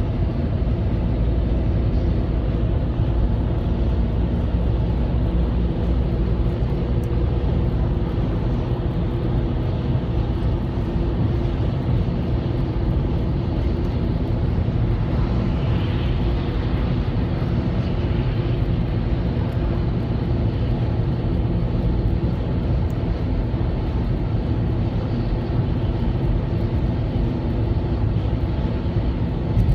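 Albach 2000 woodchipper cruising on a highway at about 80 km/h: a steady, deep engine drone mixed with road noise.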